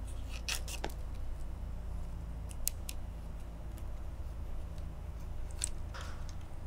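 Rattan cane strands clicking and crackling as fingers push and thread a strand through a woven cane chair seat, in a few short scattered bursts: about half a second in, in the middle, and near the end. A low steady hum runs underneath.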